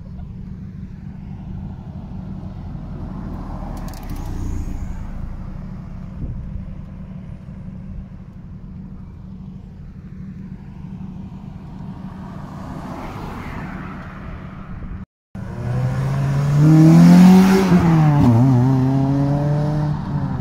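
Car engines rumbling low as cars pull away slowly. After a short dropout, one car engine revs hard and loud, its pitch climbing and then dipping and levelling off.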